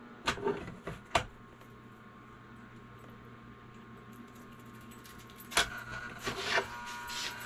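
Sharp metallic clinks of a metal cannonball sinker mold knocking against a lead melting pot as molten lead is poured into it: two clinks about a second apart near the start, then a cluster of clinks and clatter near the end, over a faint steady hum.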